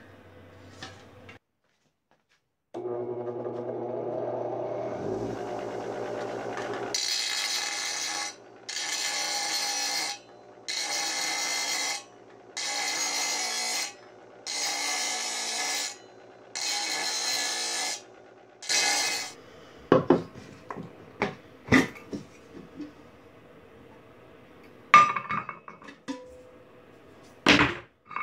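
Bench grinder motor starting and running, then the rim of a large metal can pressed against the spinning grinding wheel in seven grinding bursts of a second or so each, wearing through the seam to take the top off. Near the end come knocks and clinks of the opened can and its loose lid being handled.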